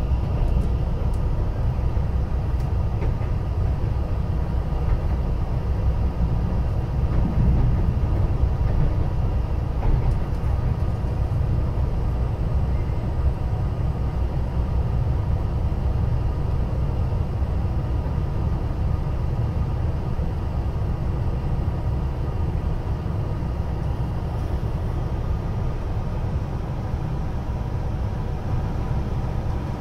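Running noise inside a JR Shikoku 2700 series diesel limited-express railcar under way: a steady low rumble from the underfloor running gear and wheels on the rails, easing slightly near the end.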